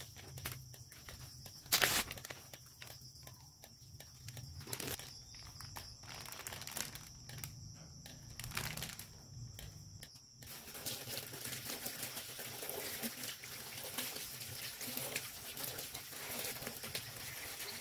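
Fish and shrimp being cleaned by hand: scattered crinkles, scrapes and clicks, with one loud sharp crackle about two seconds in. From about ten seconds in, a steady hiss of running water.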